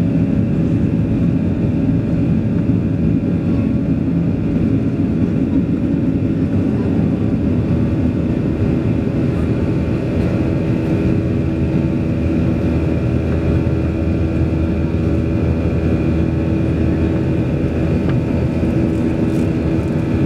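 Cabin noise of a Boeing 737-800 climbing after takeoff, heard from a seat over the wing: the CFM56-7B turbofan engines' steady rumble with a few steady humming tones above it.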